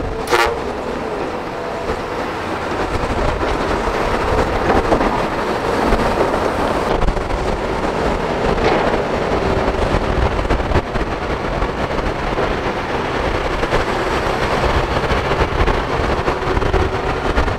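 Diesel engines of a Kobelco crawler excavator and a Scania dump truck running steadily under load while soil is loaded, with a sharp knock just after the start and two fainter knocks later.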